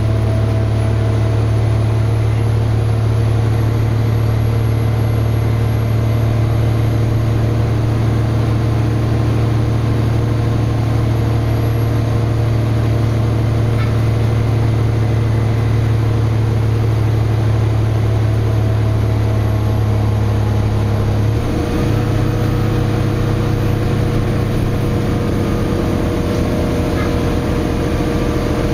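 A city bus's Cummins ISL9 diesel engine running steadily, heard from inside the passenger cabin. About 21 seconds in, the Allison automatic transmission shifts gear: the engine note changes abruptly and dips briefly.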